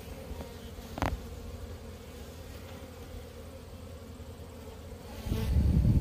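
Honey bees buzzing steadily around an open brood frame from the hive. A single sharp click about a second in, and a louder low rumble near the end.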